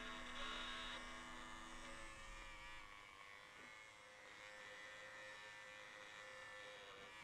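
Held notes of background music ringing out and fading away, with one faint steady tone lingering almost to the end before it dies out.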